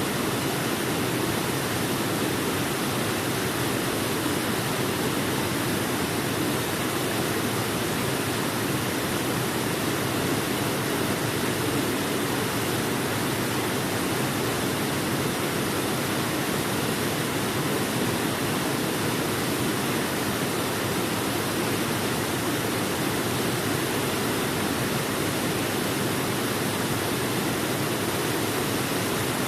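Waterfall: water falling in a steady, unbroken noise.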